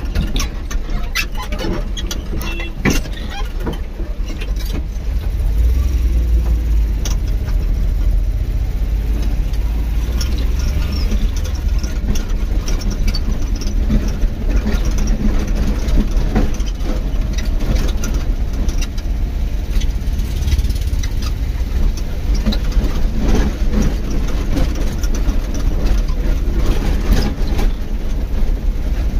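A vehicle driving over a rough, unpaved dirt road: a steady low rumble of engine and tyres, with frequent short knocks and rattles from the bumps.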